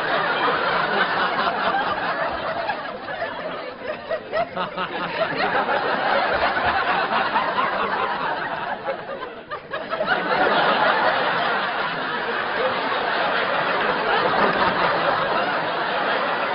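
Studio audience laughing at length, dipping briefly about nine seconds in and swelling again just after.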